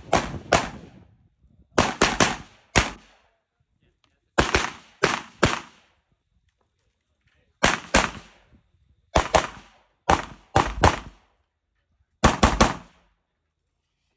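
Rifle fire in quick strings of two to four shots with pauses of a second or two between strings, about twenty shots in all.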